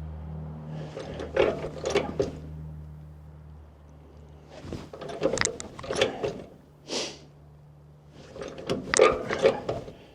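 Bursts of rapid metallic clicking and rattling from hand work on small mechanical parts, over a low steady hum that fades out and briefly comes back. A short hiss comes about seven seconds in.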